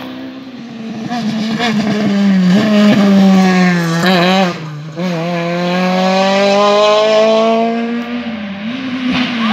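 Rally car engine accelerating hard, its note climbing steadily, with a brief break about four and a half seconds in where the revs drop, as at a gear change, before it climbs again in one long pull. Near the end another engine note comes in.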